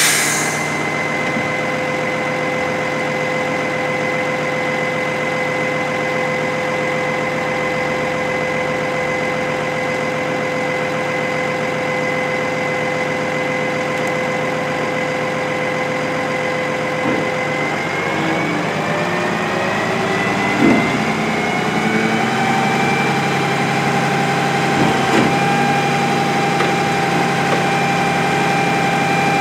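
Heil Retriever garbage truck idling with a steady whine. About 18 seconds in the pitch rises and holds higher as the engine speeds up, and a couple of short knocks sound in the second half.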